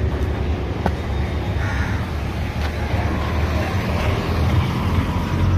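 Vehicle engine idling with a steady low rumble, while a crow caws briefly about two seconds in.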